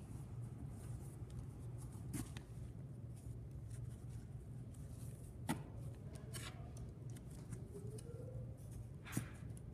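Faint rustling and a few soft clicks of hands pulling and knotting break tape around a fabric parachute deployment bag, over a low steady hum.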